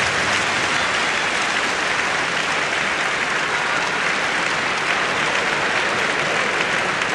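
Large crowd of spectators applauding steadily.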